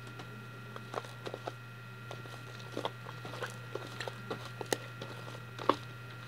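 Fluffy shaving-cream slime being kneaded and squeezed by hand in a plastic tub: irregular small squishes, crackles and clicks, over a steady low hum.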